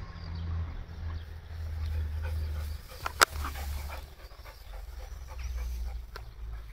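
A dog panting, with one sharp click about three seconds in.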